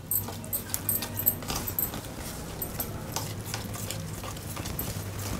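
A steel spoon stirring and scraping a thick flour paste in a stainless steel bowl, with quick, irregular clinks and scrapes of metal on metal as the lumps are worked out of the batter.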